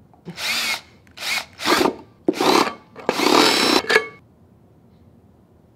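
Power drill boring a hole through a jam jar's metal screw lid in about five short bursts, the motor's whine rising in pitch as a burst starts; it stops about four seconds in.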